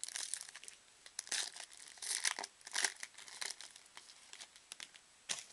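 Foil wrapper of a trading-card pack being torn open and crinkled by hand: a string of irregular crackles and rips, loudest in the middle, with a last short crackle near the end.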